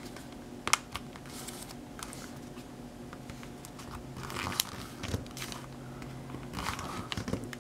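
A sheet of paper being folded and creased by hand: scattered crinkles and sharp crackles as the folds are pressed down.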